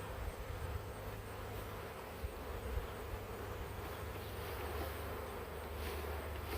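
Honey bee swarm buzzing: a steady, dense hum from many bees in the air, with a low rumble underneath.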